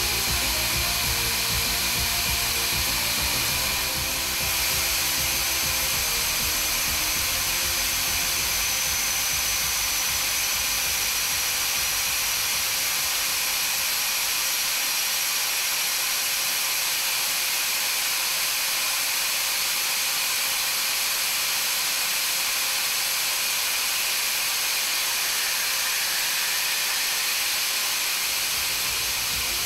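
Drill cutting on a machine tool: a steady hiss of machining with a faint high whine. Background music is heard under it in the first half, then fades out.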